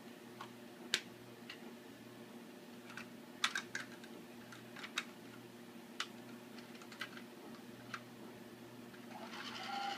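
Plastic clicks and taps as a Lego Duplo toy train's cars are handled and pushed together on the track, about a dozen separate clicks. Near the end a steady whirr starts as the battery train's motor begins running.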